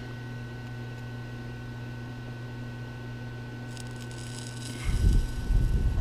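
Steady electrical hum from a small bench fan. About four seconds in, a soft hiss as the soldering iron meets the fluxed terminal of an XT60 connector, then low bumps of handling near the end.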